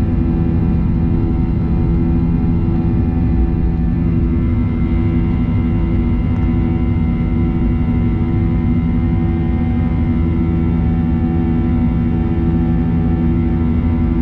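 Steady drone of a Boeing 737-800's jet engines and airflow heard inside the passenger cabin: a constant deep rumble with several steady hums on top.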